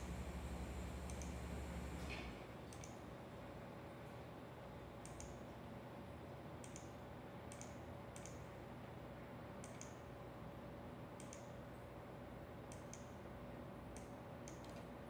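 Faint, light clicks at uneven intervals, about one a second, as the touchscreen panel PC is operated. A low hum cuts out about two seconds in.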